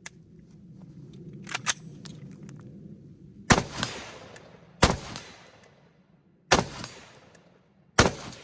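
Four single rifle shots fired about a second and a half apart, each a sharp crack with a short echoing tail, preceded by a few small metallic clicks.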